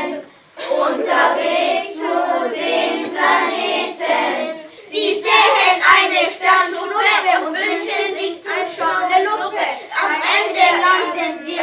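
A group of children singing a song together in German, with a brief pause about half a second in and another short break around four to five seconds in.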